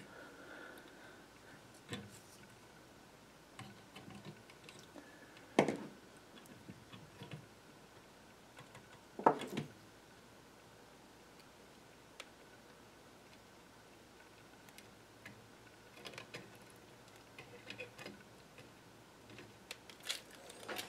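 Scattered clicks and small knocks of hand tools and components being handled during soldering work on an electronics chassis, a few louder knocks among them, over a faint steady thin tone.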